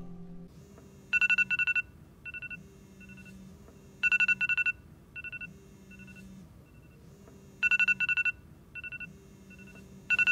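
An iPhone alarm ringing: groups of rapid high-pitched beeps, a loud burst about every three seconds with softer runs of beeps between.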